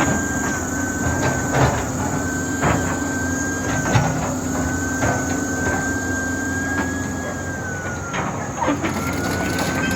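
Caterpillar 320D excavator running, its diesel engine humming steadily under a thin high whine, with a few sharp clanks from the machine working.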